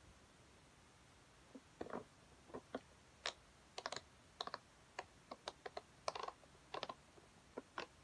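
A hand-held plastic fidget toy being clicked and pressed close to the microphone: light, irregular clicks and taps, a few a second, starting about a second and a half in.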